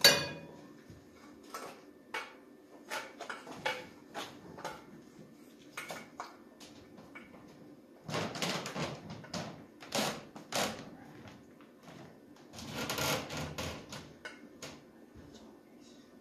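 Clinks and knocks of metal engine parts and tools being handled on a workbench: a loud knock at the start, scattered clicks, and bursts of clatter about eight, ten and thirteen seconds in.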